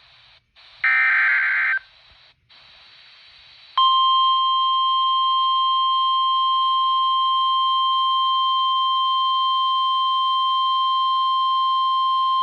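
NOAA Weather Radio emergency alert heard through a weather radio's speaker: the last SAME header data burst, a harsh digital screech lasting about a second, then faint static hiss, then about four seconds in the steady 1050 Hz warning alarm tone starts and holds. Together they signal the activation of a severe thunderstorm warning.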